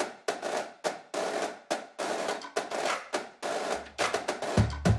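Intro theme music built on drum and snare hits in a quick, even rhythm. A low bass line comes in near the end, followed by kick-drum thumps.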